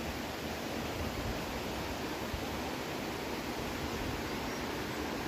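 Steady rushing noise of wind outdoors, with low, uneven rumbling where gusts hit the microphone.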